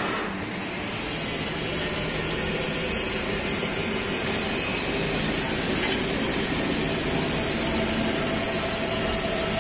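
CNC lathe spindle turning a steel hydraulic piston rod while the turning tool makes a light finishing pass along it: a steady machine whir with cutting hiss.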